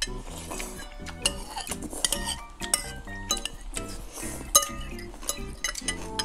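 Metal forks and spoons clinking and scraping against ceramic bowls of noodle soup, many quick clinks throughout, over background music.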